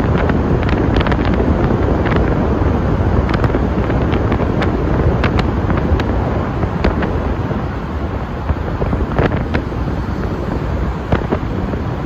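Wind rushing over the microphone and road noise from a vehicle driving through a road tunnel: a steady loud rush with scattered small clicks.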